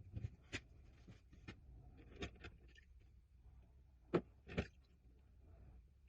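Faint scattered clicks and taps of small hard objects being handled, with two louder knocks a little after four seconds in.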